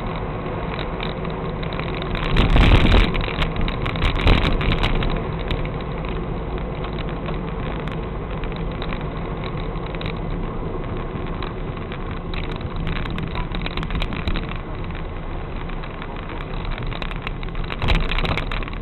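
A car's engine idling steadily, recorded by a dashcam inside the car. Artillery shells explode some way off: a loud low boom about two and a half seconds in, a sharper bang about four seconds in, and another boom near the end.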